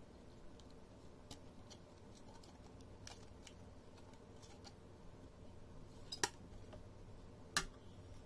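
Small clicks and taps of a 2.5-inch hard drive and the black plastic frame of an HP P2100s portable drive enclosure being handled as the drive is worked out of the frame, with two sharper clicks a little over a second apart near the end.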